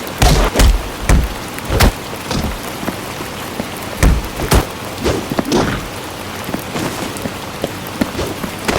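Homemade fight sound effects: irregular sharp hits and knocks, some with a heavy low thump, over a steady hiss.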